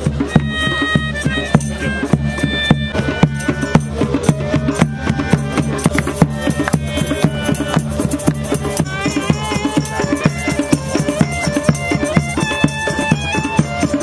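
Background music with a steady beat over a held low drone, with short melodic notes above.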